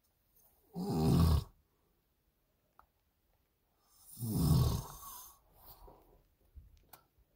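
A man snoring in his sleep inside a truck cab, picked up by a phone's microphone: two loud snores about three seconds apart, the second trailing off into a softer breath.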